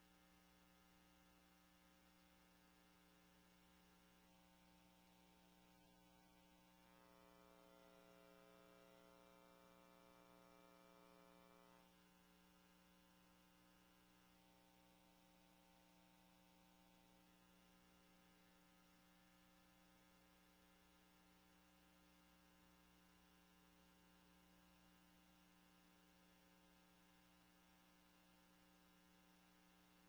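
Near silence: a faint steady electrical hum, swelling slightly for a few seconds in the middle.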